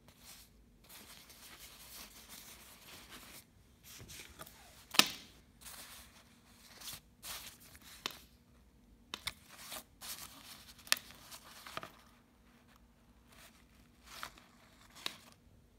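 Rustling and crinkling of a glossy nylon Herno down jacket's shell and its card hang tags as they are handled, broken by sharp clicks and snaps, the loudest about five seconds in.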